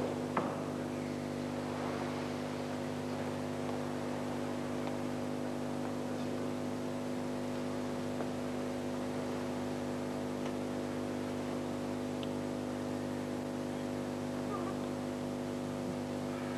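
Steady buzzing hum made of several level tones, unchanging throughout, with a faint knock about half a second in.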